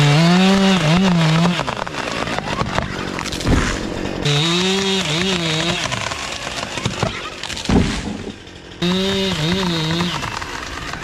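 Chainsaw opened to full throttle three times, about four seconds apart. Each time its pitch climbs, then dips and wavers as the bar bites into wood, then it drops back toward idle. This is the feller trimming the hinge to steer the falling tree. A few sharp knocks come between the cuts.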